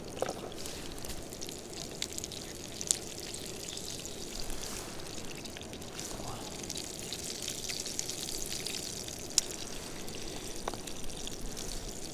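Steady rush of flowing river water, with a few faint sharp clicks, one about three seconds in and another near the end.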